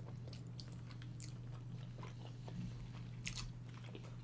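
Close-miked chewing of food: soft mouth clicks and smacks, a few a second, the loudest about three seconds in, over a steady low hum.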